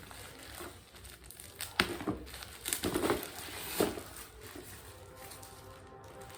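Packaging being handled: crinkling and rustling with a few sharp knocks, the loudest about two seconds in and a cluster just before four seconds.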